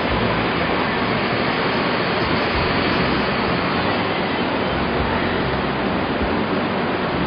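Steady outdoor rushing noise with no distinct events.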